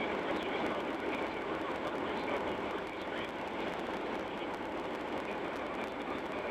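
Steady, even radio static hissing with no speech or music: an AM station's signal lost to noise.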